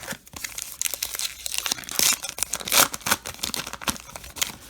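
Plastic baseball card pack wrapper being torn open and crinkled, a dense crackle with loud sharp rips about two seconds in and again a little later.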